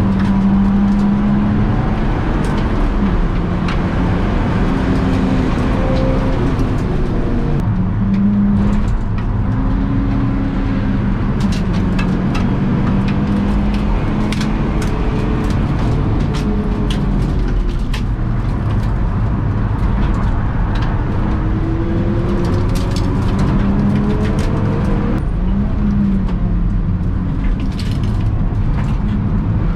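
BMW E46 track car's engine heard from inside the cabin under hard driving on a circuit. The engine note climbs and falls repeatedly, with sudden breaks in pitch about eight seconds in and again near twenty-five seconds.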